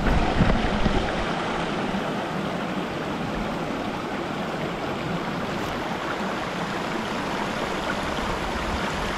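Shallow mountain stream rushing and splashing over rocks and small cascades, a steady rush of water. A few low knocks sound in the first second.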